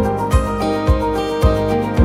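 Background music with a steady beat of about two beats a second under sustained held notes.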